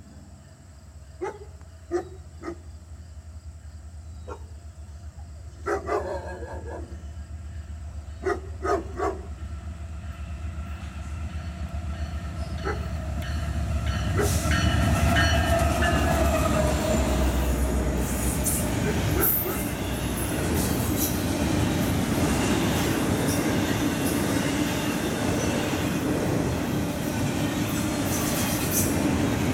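GE ES44AC diesel locomotive with a V12 engine approaching, its low engine drone growing steadily louder, with a few short sharp sounds in the first nine seconds. It passes about halfway through, and the loud steady rumble and clatter of double-stack container well cars rolling by follows, with some wheel squeal.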